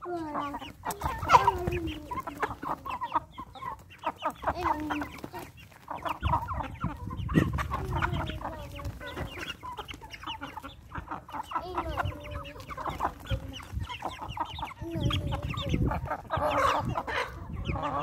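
A flock of chickens clucking, with short overlapping calls coming one after another.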